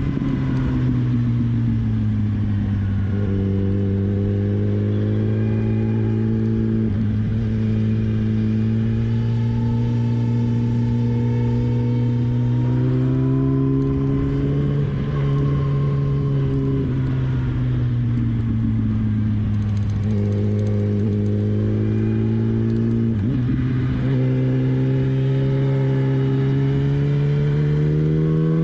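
Sport motorcycle's inline-four engine running at a steady cruise, heard from the bike itself. Its note rises and falls gently with the throttle and dips briefly three times, about a quarter, half and four-fifths of the way through.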